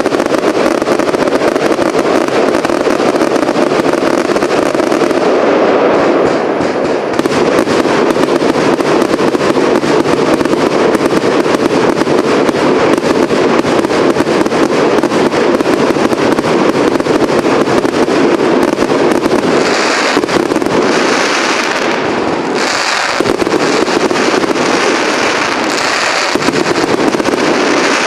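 A fireworks cake (multi-shot battery) firing a rapid, continuous barrage of shots and bursts, dense popping without pause. From about twenty seconds in, clusters of sharper, brighter crackle join the barrage.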